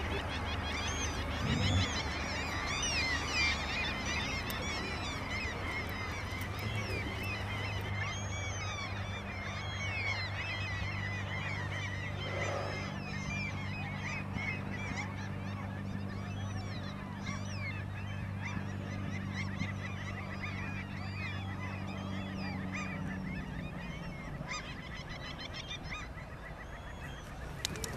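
A flock of birds calling over one another in many short, rapid calls, over a steady low hum that fades out near the end.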